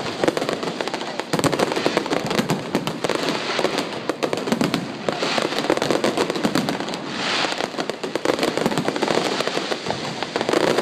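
Fireworks going off in a dense, rapid crackle of many small pops, without let-up.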